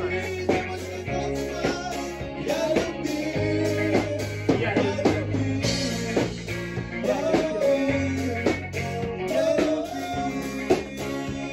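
A live rock band playing a song in a rehearsal room: electric guitar and drum kit under a steady low bass line, with singing.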